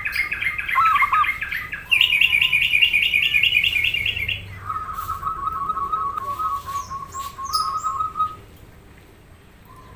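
Birds calling: two fast, high chirping trills in the first four and a half seconds, then a quick series of repeated lower notes that stops about eight and a half seconds in.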